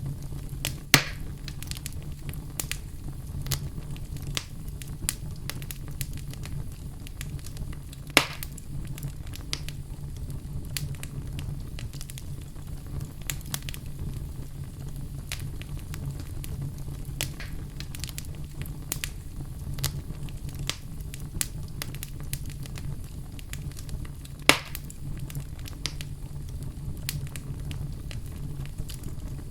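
Wood fire burning in a fireplace, crackling steadily over a low rumble, with three louder pops: about a second in, about eight seconds in, and near the end.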